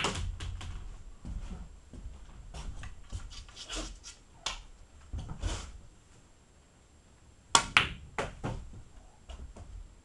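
Pool balls clicking on a pool table: sharp clacks of cue tip on cue ball and ball against ball, with balls rolling and knocking for a few seconds. A new shot about seven and a half seconds in gives the loudest pair of sharp cracks, followed by smaller clicks.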